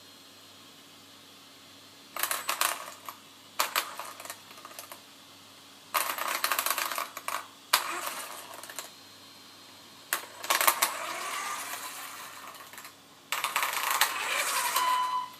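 Five bursts of rapid clinking and rattling, each one to three seconds long, separated by short quieter pauses.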